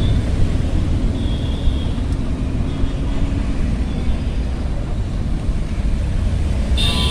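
Steady low rumble of city road traffic and wind on the microphone of a moving bicycle. A short high-pitched tone sounds near the end.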